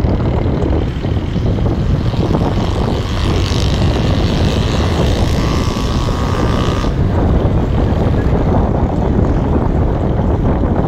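Steady rumble of road and wind noise recorded from inside a moving car. A brighter hiss drops away about seven seconds in.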